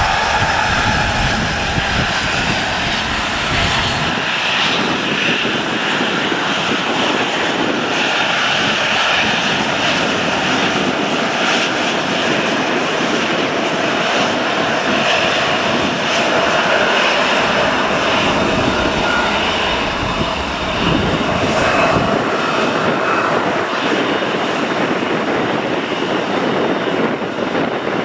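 Airliner engines running steadily with a sustained whine. Gusts of wind rumble on the microphone at the start and again about twenty seconds in.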